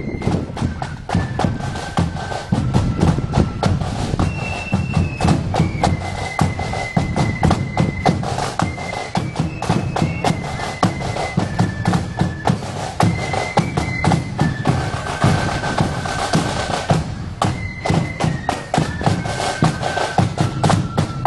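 Marching band playing a tune on high-pitched melody instruments over rapid snare drumming and a bass drum.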